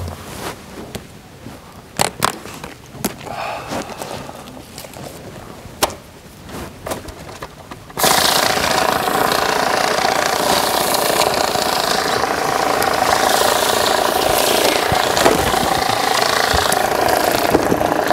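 A few sharp clicks and knocks, then about eight seconds in an electric banknote counting machine starts running, loud and steady.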